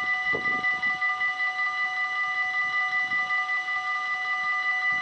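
Electronic level-crossing warning bell ringing in rapid, even pulses, with several high tones sounding at once.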